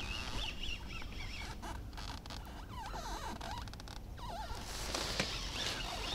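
Small birds chirping in short warbling calls over wind rumbling on the microphone, with a quick run of faint clicks about two seconds in.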